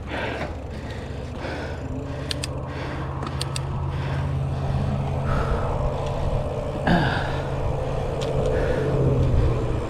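Mountain bike rolling along a dirt singletrack: a steady low rumble of tyres and wind on the microphone. A few sharp clicks and rattles come through as the bike goes over the trail, and the rider is breathing hard.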